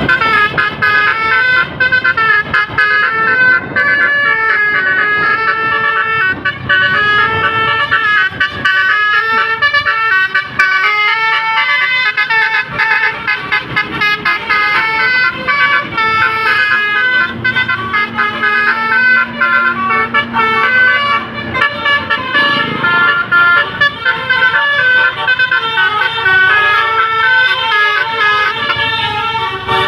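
Basuri musical bus horn playing a fast melody, the notes stepping up and down in quick succession without a break.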